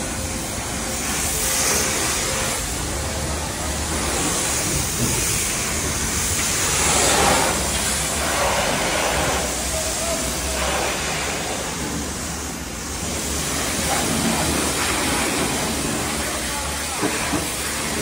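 High-pressure washer jet hissing as it sprays water over a car's body to rinse off foam, a steady hiss that swells and eases as the wand moves, over a steady low hum.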